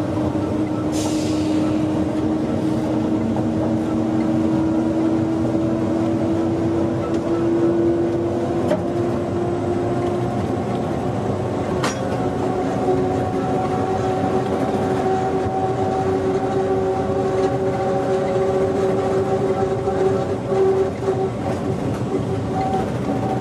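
Electric train running and accelerating: a steady rumble of wheels on rail with a motor whine that rises slowly in pitch as the train speeds up, and a few sharp clicks.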